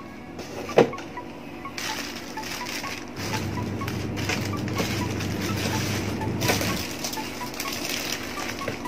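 Clear plastic accessory bags crinkling and rustling as they are handled, with a single sharp knock about a second in, over background music.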